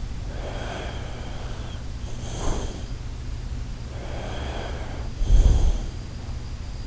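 Shiba Inu snoring in its sleep, slow breaths coming about every two and a half seconds. A short sharp breath comes about two and a half seconds in, and the loudest, deepest snore about five and a half seconds in.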